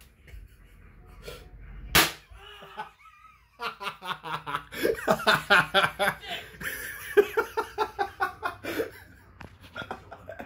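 A firecracker goes off with one sharp bang about two seconds in. A man then laughs hard and long.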